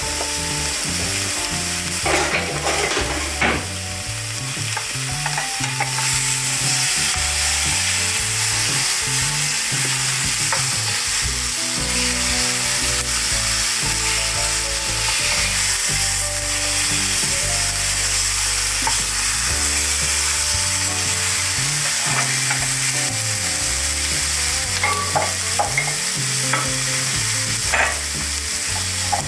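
Marinated chicken drumsticks sizzling steadily as they fry in a non-stick pan. A wooden spoon knocks and scrapes against the pan while turning them, a few times about two seconds in and again near the end.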